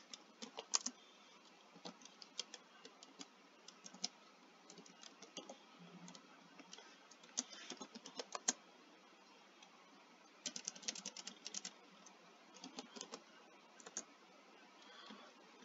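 Typing on a computer keyboard: faint, irregular runs of key clicks, with a quick flurry about ten and a half seconds in.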